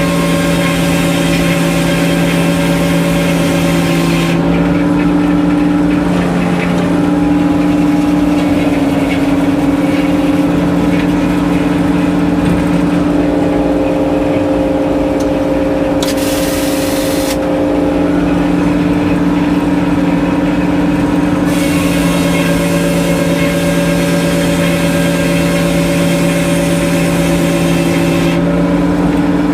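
Engine powering a sawmill, running steadily with a deep drone; its pitch sags slightly now and then. A high hiss comes in for stretches over it, near the start, briefly in the middle and for several seconds near the end.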